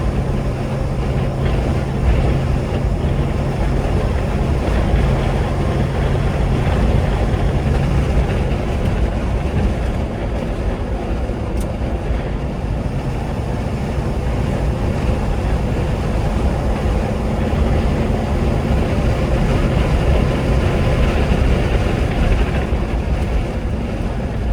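V8-engined 1975 Land Rover Series III being driven: engine running steadily under way, with road and wind noise. The engine note shifts about nine seconds in.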